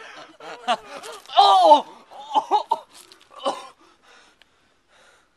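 Young men laughing and gasping just after one is hit by a snowball, with a loud shout of "Oh!" about a second and a half in. It dies away after about four seconds.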